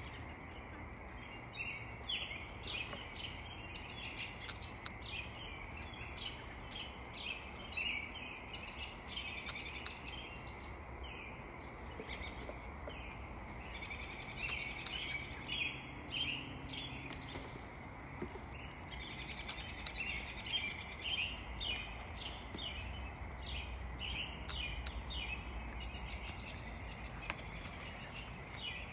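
Birds chirping continuously in the background, many short high calls in quick runs, over steady low outdoor background noise, with occasional sharp clicks.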